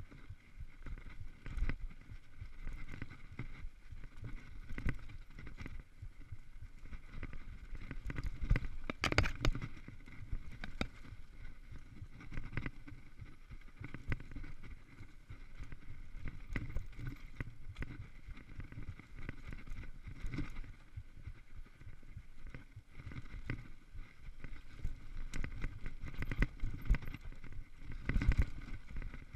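Mountain bike riding down rough dirt singletrack: tyres rolling over dirt and rocks, with continual rattles and knocks from the bike. The hardest jolts come about nine seconds in and again near the end, over rocks.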